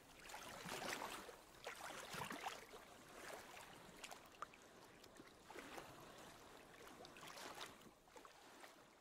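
Faint water sloshing and lapping in irregular swells about a second apart, fading out near the end.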